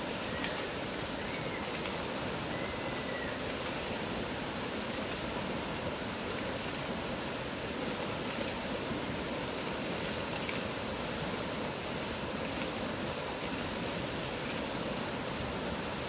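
Fast, turbulent mountain river rushing over rocks: a steady, even sound of loud flowing water.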